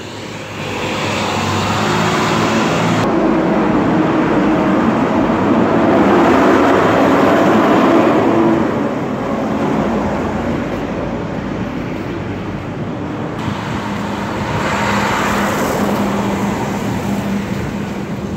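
Garbage truck's diesel engine running close by. It grows louder to a peak a little before the middle, eases off, and swells again near the end.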